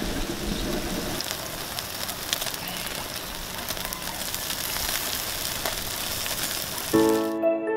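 Chicken yakitori skewers sizzling and crackling over a charcoal grill, a steady hiss with many small pops. Piano music comes in near the end.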